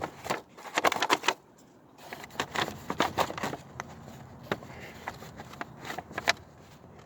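Scattered clicks, crackles and light scrapes from hands working the covering of a car door panel insert.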